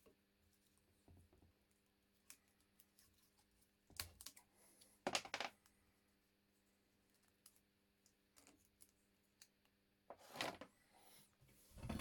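Mostly near silence, broken by a few short clicks and rattles of a small fitting being handled on the washing machine motor's shaft: a couple about four and five seconds in, and more near the end.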